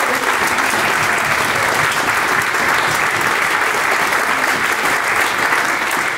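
Audience applauding steadily, a small crowd clapping hands after a song.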